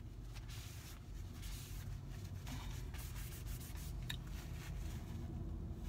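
Soft rubbing and rustling of hands handling something, a run of short scratchy strokes with no words.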